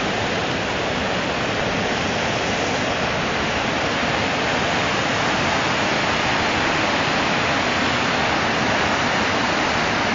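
Muddy floodwater rushing steadily across and through a washed-out road, a continuous even rush with no breaks.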